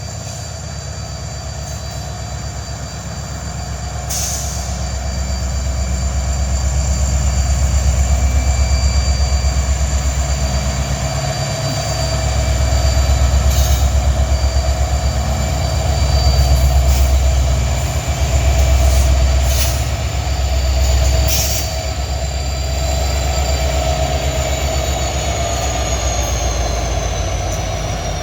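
Freight cars rolling past with a heavy rumble and a steady high-pitched wheel squeal, the top tone sinking slightly near the end. A few sharp clacks sound at intervals.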